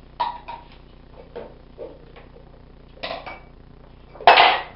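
Handling noise from drying a pet rat in a towel on a bathroom sink counter: scattered short knocks and clinks against the counter and faucet, with one louder clatter near the end.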